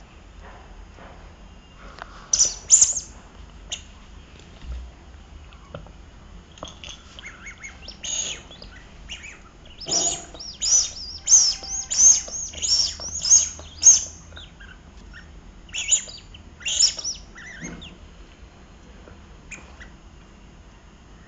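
Rubber squeaky toy squeaking in short, high squeaks as a puppy bites down on it. Two squeaks come a couple of seconds in, then a quick run of about seven, then a few more.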